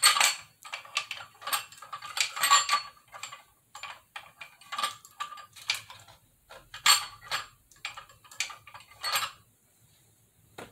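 Hard plastic and metal parts clicking, knocking and rattling as the dryer stand's black plastic five-leg caster base, its metal hub plate and center pole are fitted together by hand. The knocks come in an irregular run and stop about a second before the end.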